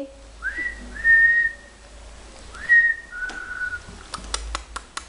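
A person whistling to call puppies: two two-note whistles, each a quick rising note followed by a longer held one. A quick run of sharp clicks comes near the end.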